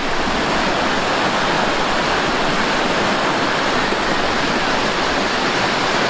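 Fast-flowing stream rushing and tumbling in white water, a steady rush with no break.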